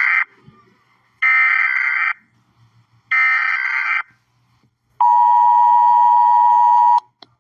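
Emergency Alert System signal. The end of one SAME header data burst is followed by two more, each a harsh electronic screech about a second long with about a second of gap. About five seconds in comes the steady two-tone EAS attention signal, held for about two seconds.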